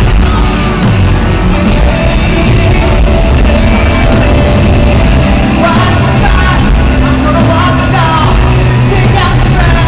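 Live R&B concert music over an arena PA, recorded loud from the audience, with a male singer singing into a handheld microphone; the sung line stands out from about six seconds in.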